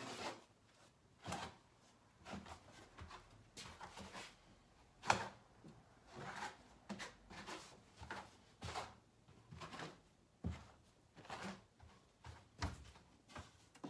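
Steel notched trowel scraping and combing thinset mortar across a wooden shower-pan substrate in short repeated strokes, about one every half second to a second, with one louder scrape about five seconds in.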